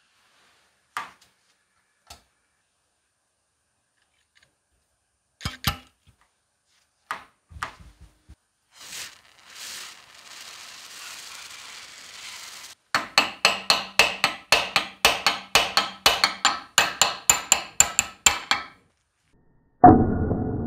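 Metal taps and clicks on a DOKU AA-1.3B air hammer's cast housing held in a vise, then a spray hissing for about three seconds. A quick run of hammer taps follows, about four a second, on a thin punch set in a hole in the housing. Near the end comes one loud metal strike that rings on.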